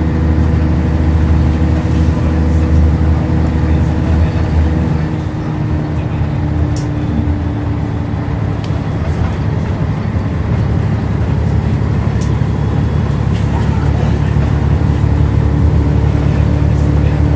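Scania N113CRB bus engine, a rear-mounted 11-litre diesel, running steadily as the bus drives along, heard from inside the passenger cabin. It is a constant engine drone with a light click or rattle twice, about seven and twelve seconds in.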